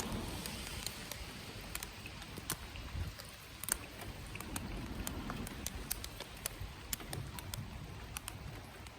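Rain pattering, with scattered drops ticking sharply and irregularly close by, over a low steady rumble.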